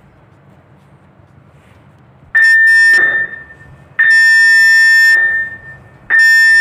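Ship's alarm signal sounding over the public address system: three loud electronic tone blasts, short, long, then short, starting about two seconds in.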